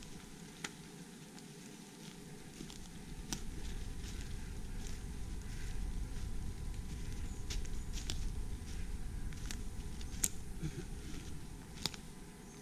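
Footsteps through forest leaf litter, with scattered sharp crackles and twig snaps, over a low rumble that builds from about two seconds in and falls away near the end.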